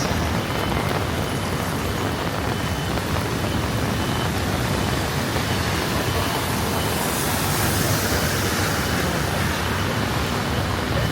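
Steady city street traffic noise, with a vehicle passing about seven to nine seconds in.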